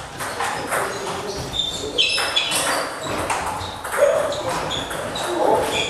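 Table tennis balls clicking and pinging irregularly on tables and bats from several tables in play, echoing in a large hall.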